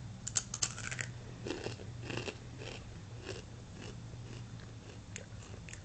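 Takis rolled corn tortilla chips crunched between the teeth: a quick run of sharp bites about half a second in, then slower chewing crunches that grow fainter toward the end.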